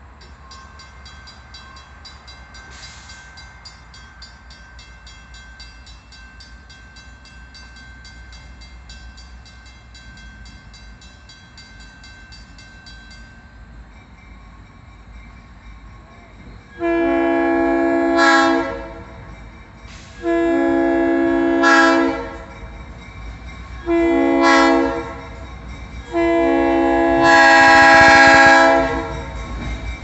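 Grade-crossing warning bell ringing steadily for the first half. Then the horn of the lead locomotive, a GE U23B, sounds the standard grade-crossing signal: two long blasts, one short and a final longer one. Diesel rumble grows as the train nears.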